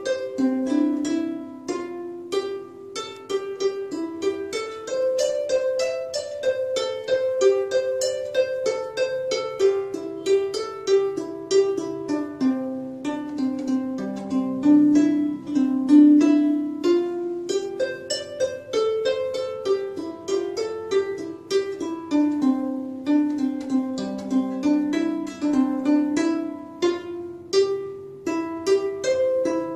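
Instrumental background music of quickly plucked string notes playing a continuous melody.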